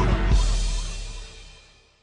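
Song with a drum kit ending: a last strong beat about a third of a second in, then the music fades out to silence.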